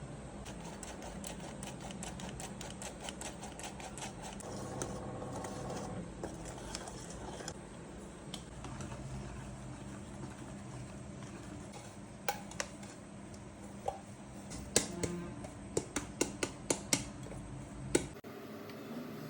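Irregular sharp clicks and taps, quick runs of them at first and a louder cluster near the end, over a steady low hum that cuts off suddenly near the end.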